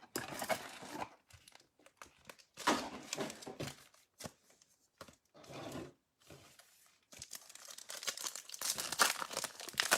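Topps Chrome baseball card pack wrapper being torn open and crinkled by hand, in several bursts with short pauses, the crinkling busiest in the last few seconds.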